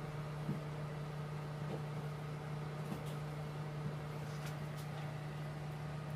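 A steady low electrical or machine hum, with a few faint light clicks scattered through it.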